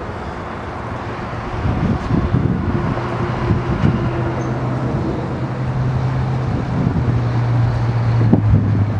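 Goodyear blimp's engines running steadily at low power, a low hum that comes up about two seconds in, with wind gusting on the microphone.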